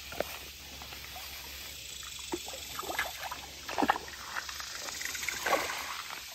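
Water splashing in short bursts, about half a dozen over several seconds, as a hooked bluegill thrashes at the surface while it is reeled in to the bank.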